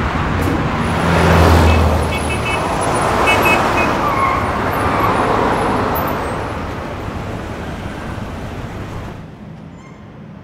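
Busy city road traffic: a dense steady rush of passing vehicles, with a heavy vehicle rumbling past about a second in. It fades down near the end.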